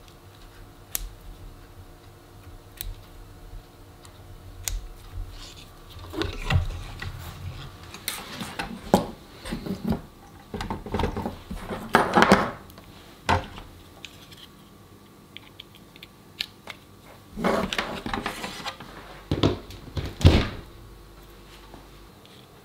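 Hands handling electrical leads and connectors on a wooden workbench: irregular clicks, clinks and rustles as bullet connectors and a power plug are pushed together on an RC motor's speed controller. A faint steady hum runs underneath.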